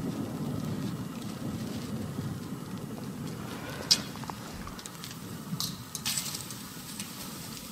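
Low rumble of a big firework rocket's burst dying away, with a few sharp cracks, the loudest about four seconds in.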